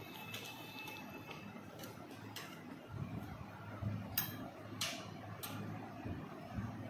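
Light tabletop clicks and taps from a small plastic glue bottle and a spoon in a glass bowl being handled: a few faint taps at first, then three sharp clicks about half a second apart, over a low steady hum.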